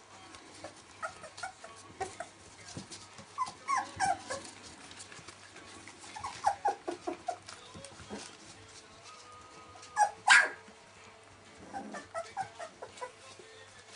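Litter of 19-day-old Welsh Springer Spaniel puppies giving short, high calls in scattered little clusters, with one louder cry about ten seconds in.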